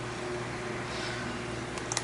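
Lansky synthetic hone drawn lightly along a knife edge, a faint scrape about a second in, with a sharp click near the end, over a steady hum.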